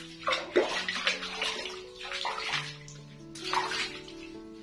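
Water splashing and pouring while a small monkey is bathed, coming in three bursts, over background music with long held notes.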